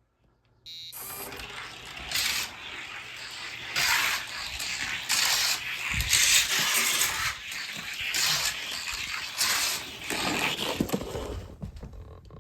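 A 55-gram die-cast toy car, a Johnny Lightning Camaro Wind, rolling down a long plastic racing track: its wheels rattle and clatter on the track, with several louder surges along the run. It starts about a second in and dies away just before the end.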